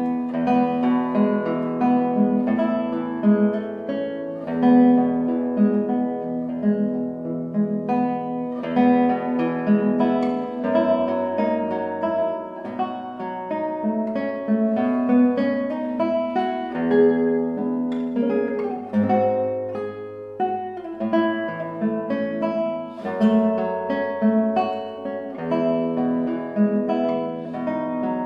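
Classical guitar music: a melody of plucked notes over bass notes.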